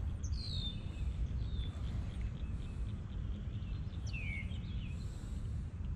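Wind buffeting the microphone with a steady low rumble. A bird gives a short downward-sliding call near the start and another about four seconds in.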